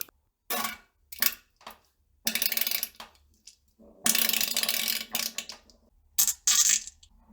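A string of farts: several short ones, then two longer, rattly ones, the longest lasting about two seconds, followed by two more short ones, each separated by a brief silence.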